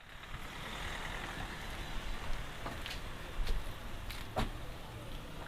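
Jaguar F-Type V8 R's supercharged V8 idling quietly, with a few sharp clicks in the second half.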